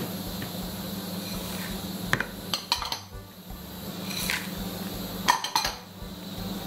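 Small patterned serving bowls clinking against the rim of a large mixing bowl as chopped nuts, chocolate chips and coconut are tipped in: a few sharp clinks about two seconds in, near the middle and again about five seconds in, over a steady low hum.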